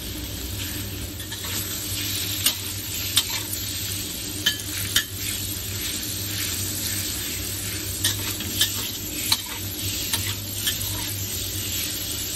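Sliced pork belly sizzling in hot oil in a large wok, with a metal spatula clinking and scraping against the pan about eight times as it is stir-fried.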